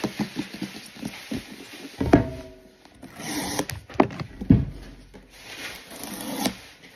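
Handling noise from the boxed iPad Pro and the phone: irregular knocks, taps and rustles, with one short pitched sound about two seconds in.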